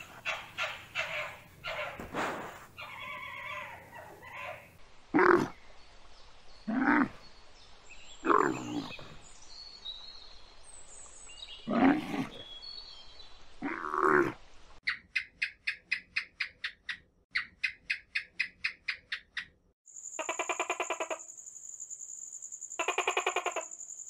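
A run of animal calls: a fennec fox's quick, high yelps, then a camel's loud groaning calls, five of them a second or two apart. After that come several trains of rapid clicking chirps, and near the end a steady high whine with two longer rattling calls.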